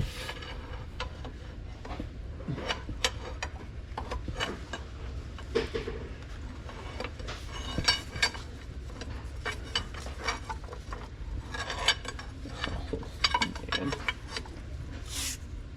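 Hand tools clinking, tapping and scraping against metal transmission parts in an irregular series of sharp clinks, over a low steady hum, with a short hiss near the end.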